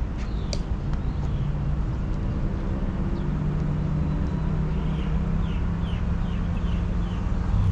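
Steady low hum over a rumbling outdoor background, picked up by a camera sitting on the ground. About five seconds in comes a quick run of about six short falling chirps.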